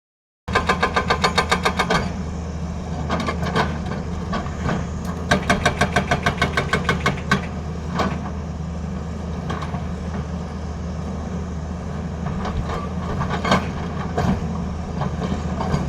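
Tata Hitachi excavator's hydraulic breaker hammering in two runs of rapid blows, about six or seven a second, over the steady run of the excavator's diesel engine. Scattered single knocks follow later.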